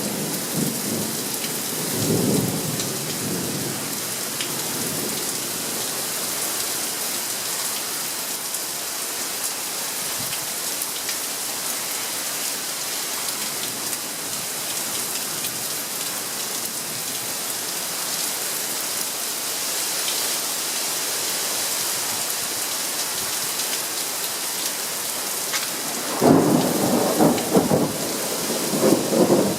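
Thunderstorm: steady rain falling throughout, with thunder rumbling and fading in the first few seconds, then a loud new rumble of thunder rolling in near the end.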